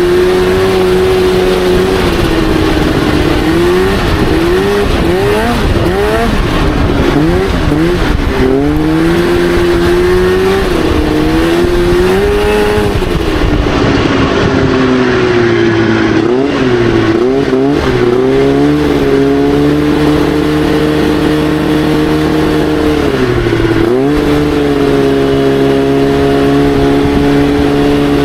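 Crosskart buggy's engine running hard, its pitch rising and falling in quick swings as the throttle is worked, then holding fairly steady with one sharp drop and recovery near the end.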